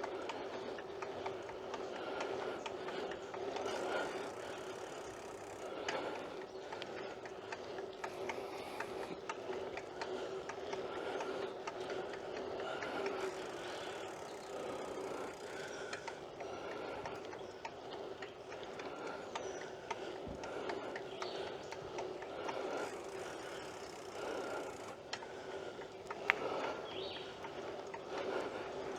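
A BMX bike being ridden, with a steady rolling hum from the tyres and many small mechanical clicks and rattles from the bike throughout.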